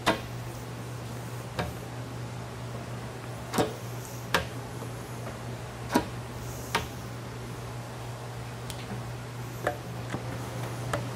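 Window-tint tools being handled against a wet car door and its glass: about eight short, sharp clicks at uneven intervals, over a steady low hum.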